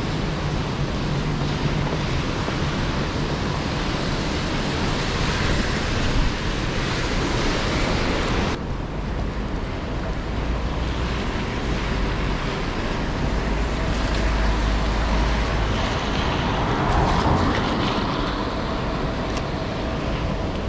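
Rainy city street ambience: a steady hiss of rain and tyres on wet roads, with traffic and wind on the microphone. The sound changes abruptly about eight seconds in and loses much of its high hiss.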